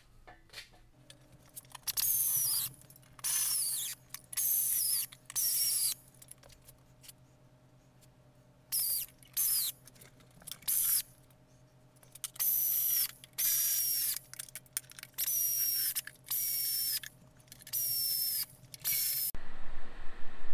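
Air ratchet running down valve cover bolts in a dozen or so short bursts, each with a whine that falls in pitch, pausing for a few seconds midway.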